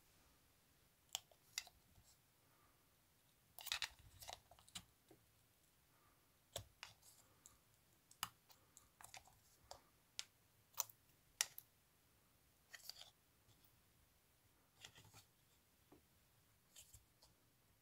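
Irregular sharp clicks and short scrapes of a plastic pry tool levering around the rim of a JBL 035TiA tweeter, working its faceplate loose from the magnet assembly.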